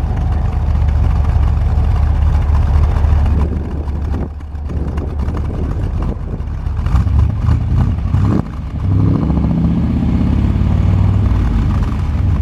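1969 Corvette's V8 engine running, dropping off briefly twice, about four and eight seconds in, then rising in pitch as it picks up revs.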